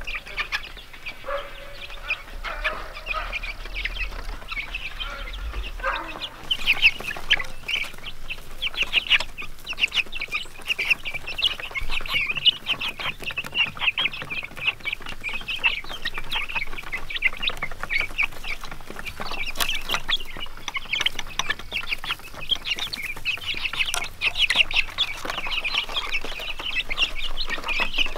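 A flock of young chickens peeping and clucking: a few calls at first, then from about six seconds in a dense, continuous chorus of short high peeps.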